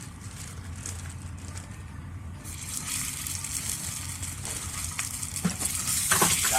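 Hot dogs sizzling as they cook, a hissing crackle that sets in about two and a half seconds in and grows louder, over a steady low hum, with a few knocks near the end.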